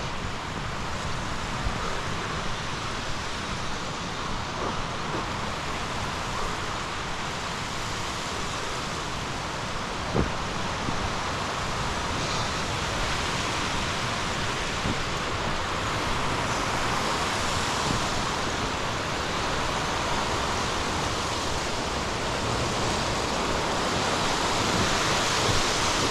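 Steady rushing noise of wind and Lake Michigan surf, with one brief knock about ten seconds in.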